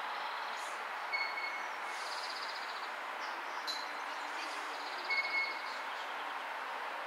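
Sheffield Supertram tram running past at low speed: a steady noise of wheels on rail. A few short high-pitched notes come about a second in and again after five seconds.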